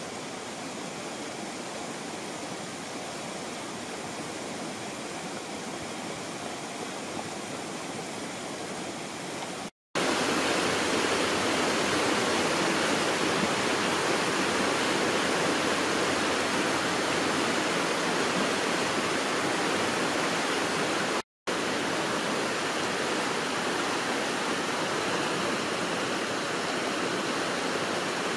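River water rushing over rocks in shallow rapids, a steady rush. It cuts out briefly about ten seconds in and comes back louder, then cuts out briefly again about two-thirds of the way through.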